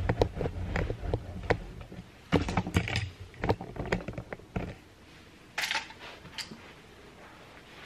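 Handling noise from a camera being picked up and moved closer: a run of knocks and rustles over a low rumble for the first few seconds, then quieter, with one more bump about halfway through.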